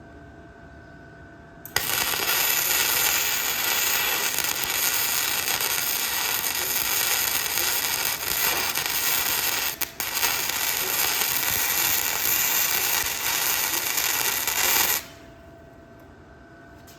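Electric welding arc crackling steadily while a bead is laid, starting abruptly about two seconds in, breaking off for a moment near ten seconds, and stopping abruptly near the end.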